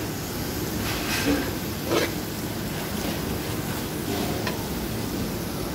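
Chopped upo and patola with salmon sizzling in an aluminium pot as a metal spoon stirs them, with a few short scrapes and knocks of the spoon on the pot about one second in, two seconds in and near the end.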